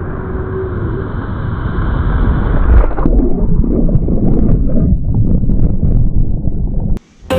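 Rushing whitewater of a river rapid, loud and churning, recorded on a waterproof action camera. About three seconds in, the sound turns muffled and low as the camera plunges under the water, with turbulent gurgling and rumbling; it cuts off abruptly near the end.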